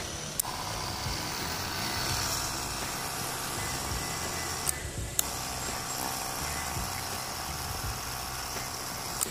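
Battery sprayer's electric pump motor switched on with a click and running steadily. It is switched off for about half a second around the middle and then runs again.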